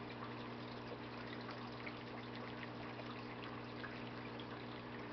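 Santa Monica 100 algae scrubber running on its own: water trickling and dripping through its drain over the steady low hum of its small water pump, all faint.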